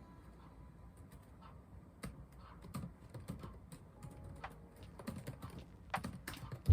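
Typing on a computer keyboard: quiet, irregular key clicks, coming a little faster in the second half.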